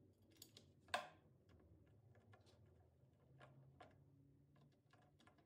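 Near silence with a few faint, short clicks and light knocks, the sharpest a single click about a second in.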